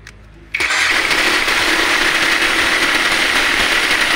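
Cordless impact wrench kicking in about half a second in and running steadily, hammering a 27 mm nut on a vehicle's front shock absorber tight under load.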